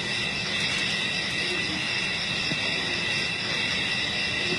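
Insect chorus: a steady, high-pitched drone that does not change.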